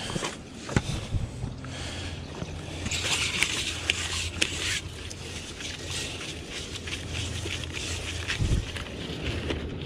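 Scraping and handling noises as a drain-cleaning flex shaft cable is fed by hand down a PVC drain riser, with scattered clicks over a low steady hum.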